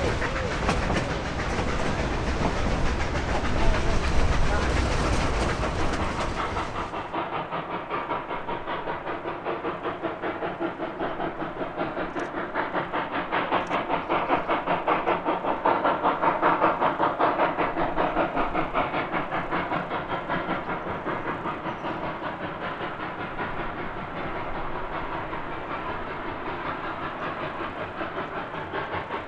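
Narrow-gauge steam locomotives, a road engine with a helper, working hard up the grade to the pass, their exhaust beating in a fast, even rhythm of chuffs. About seven seconds in the sound changes abruptly to a duller, more muffled chuffing.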